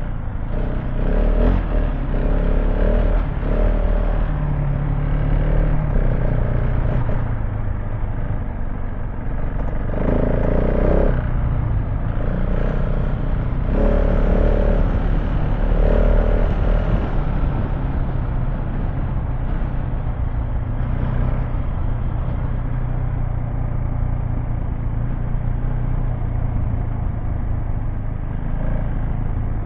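KTM 690 Enduro R's single-cylinder engine running under changing throttle while riding off-road, with clatter from the bike over the rough ground.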